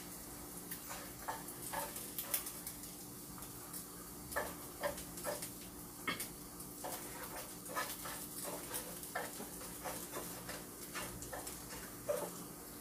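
Chopsticks clicking and scraping against a frying pan and a plate as pan-fried pieces are turned and lifted out, many light clicks at an uneven pace, over a faint sizzle of frying.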